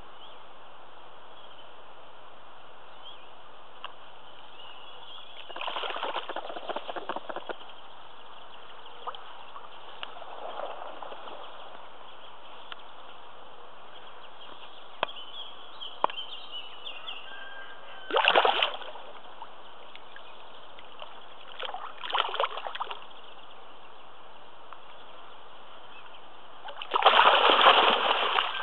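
Spawning carp thrashing at the surface in the shallow margin: several separate splashes a few seconds apart over a steady hiss, the last and loudest near the end.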